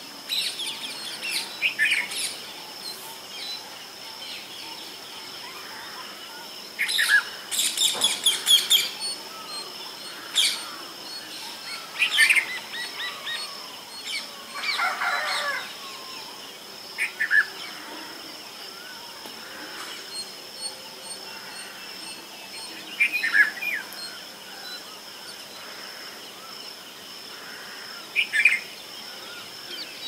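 Red-vented bulbul calling in short chirping phrases that come in clusters every few seconds, the busiest run about a quarter of the way in, over a steady high-pitched hum.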